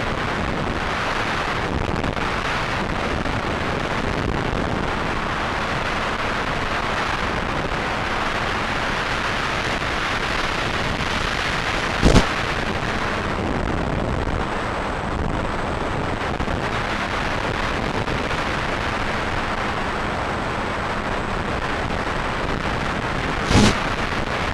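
Steady rushing noise, like wind buffeting the microphone, with two brief loud knocks: one about halfway through and one near the end.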